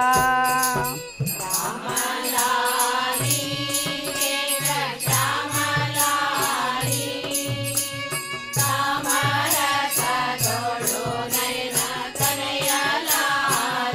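Carnatic-style devotional group singing, women's voices in unison, accompanied by violin, over a steady percussion beat of about three strokes a second.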